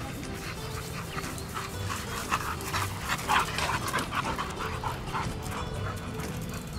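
Two pitbulls panting hard as they run, quick rasping breaths that are loudest in the middle, over steady background music.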